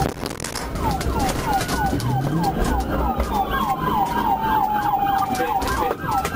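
Police car sirens: one in a fast yelp of about four falling chirps a second, over a slower wail that falls and then rises again near the end. The rumble of the moving car runs underneath.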